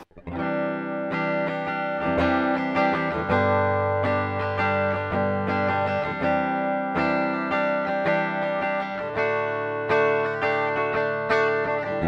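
Ibanez GRGR121M-POP electric guitar played on its bridge pickup with a clean tone, chords and single notes ringing out one after another.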